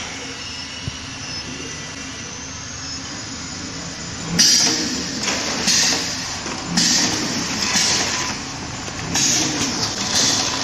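Automatic vertical liquid sachet filling and sealing machine (ATM-320L) running. After a steady hum, from about four seconds in it settles into a cycle repeating roughly every two and a half seconds. Each cycle brings sharp hisses of air and clunks as its pneumatic sealing jaws close and open on each bag.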